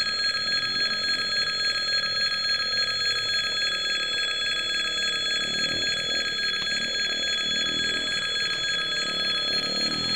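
A level-crossing warning bell rings continuously as a steady electric ringing. Under it is the low rumble of a slow freight train's container wagons rolling past.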